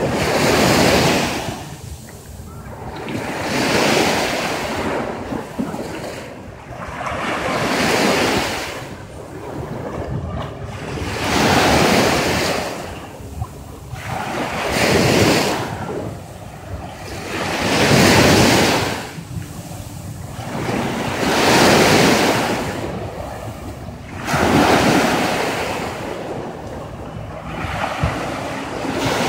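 Small waves breaking and washing up a sandy shore, each wash swelling and fading about every three to four seconds.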